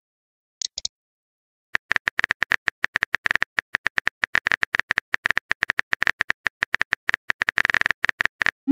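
Phone keyboard typing sound effect: a fast run of short tapping clicks, several a second, as a text message is typed. A quick pair of high clicks comes shortly before the typing starts, and a short rising swoosh at the very end as the message is sent.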